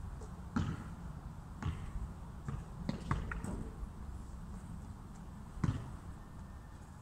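A few scattered dull thuds and knocks, five or so at uneven spacing, over a steady low rumble.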